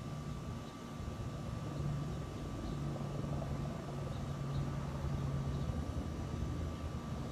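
Firefighting aircraft engine droning steadily, a low even hum with a faint higher whine.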